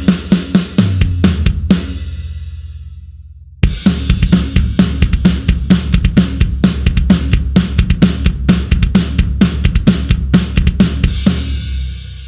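Sampled drum kit from the Blasting Room Signature Series Drums Kontakt library, playing a fast beat of kick, snare, hi-hat and cymbals. The beat stops about two seconds in and rings out. A new fast groove starts about three and a half seconds in and rings out near the end.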